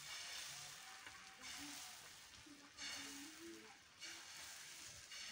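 Thin sheet of beaten egg sizzling on a flat iron griddle over a wood fire, with a metal spatula working at it. The faint sizzle swells and eases about every second or so.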